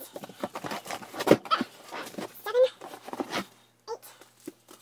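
Shrink-wrapped packs of composition notebooks being handled and lifted out of a cardboard box: plastic crinkling and rustling with a run of knocks, the loudest about a second in. A short rising whine-like call comes about two and a half seconds in.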